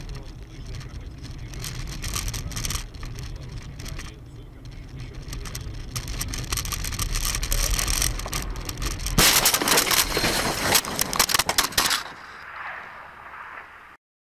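Dashcam recording from inside a car on a winter road: steady road and engine rumble, then about nine seconds in, a loud crunching, rattling clatter for about three seconds as the car leaves the road into the snowbank.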